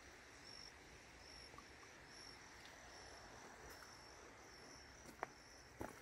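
Near silence with faint insect chirping: short, high chirps repeating over a steady high hum. A couple of faint clicks near the end.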